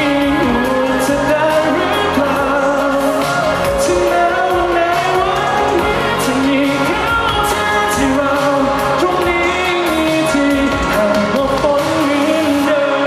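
A male singer performing a Thai pop song live over backing music with a steady drum beat. Near the end the drums drop out, leaving the voice and sustained accompaniment.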